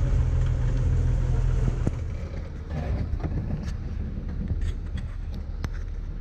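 Jeep Wrangler engine running under load at crawling speed, then easing off to a quieter low idle about two seconds in, with scattered light clicks and knocks.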